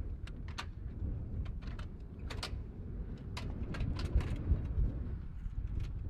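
Low, uneven rumble of wind on the microphone, with scattered sharp clicks and knocks from hands working the black end caps of a munitions container.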